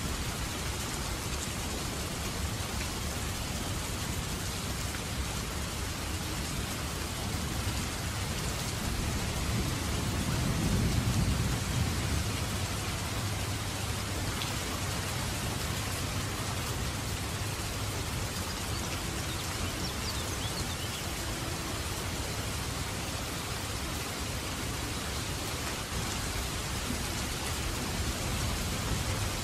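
Rain falling steadily, an even hiss throughout. A low rumble swells and fades about ten seconds in.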